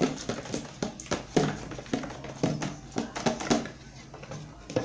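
Slime being mixed or kneaded while it is still forming: a run of irregular wet clicks, pops and squelches.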